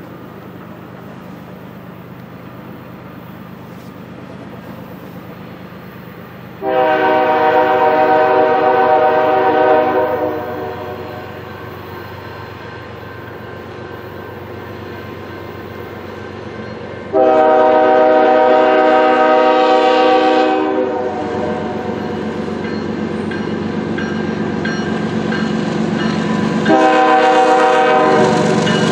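Horn of a CN ES44DC diesel locomotive sounding two long blasts, each about four seconds, and a third starting near the end, over the growing rumble of the approaching locomotives.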